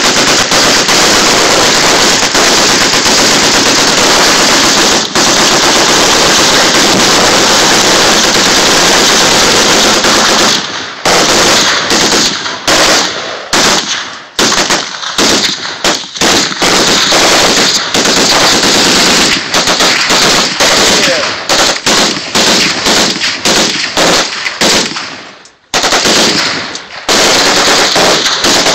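Several machine guns firing together, loud: about ten seconds of unbroken fire, then overlapping bursts with short gaps between them for the rest of the time, with one longer pause about three quarters of the way through.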